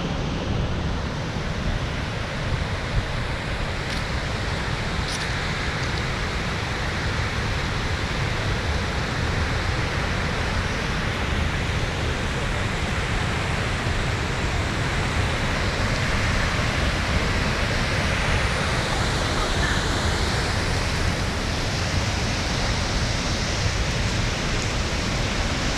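Steady rushing of flowing water, an even, unbroken wash of noise with a heavy low rumble underneath.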